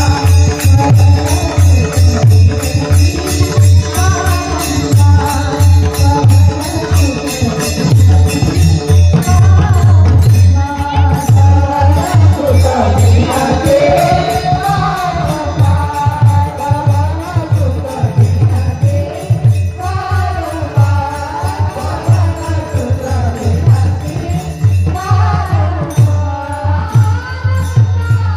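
Devotional Marathi kirtan singing: a woman's voice sings a winding melody over a fast, steady pakhavaj drum beat and jingling hand percussion.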